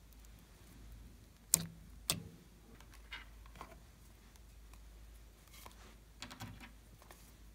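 Hard plastic clicks and taps as an eyeshadow palette is handled: two sharp clicks about half a second apart, softer ticks a second later, and a short cluster of light taps near the end.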